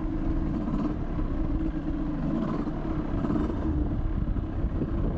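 Two-stroke 50 cc Minarelli engine of an Aprilia RX 50 running at steady revs while riding, its note holding even.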